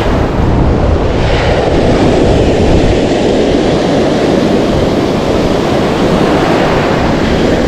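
Ocean surf breaking and washing over the shallows, mixed with wind rumbling on the microphone: a loud, steady rush.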